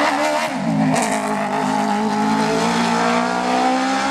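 Mercedes 190 E hillclimb car with a former Judd Formula 1 engine, running hard as it passes. The engine note dips briefly about a second in, then rises steadily as it accelerates.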